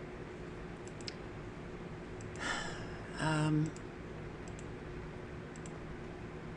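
A pause in narration: a steady electrical room hum with a few faint clicks, an intake of breath about two and a half seconds in, and a brief hummed 'mm' from the voice just after.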